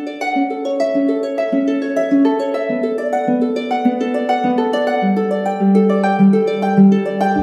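Instrumental music of quick plucked-string notes in rippling runs.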